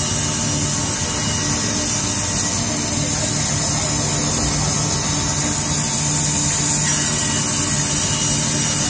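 CNC band saw running, its narrow blade cutting a curve through a stack of timber blocks: a steady mechanical hum under a constant high hiss.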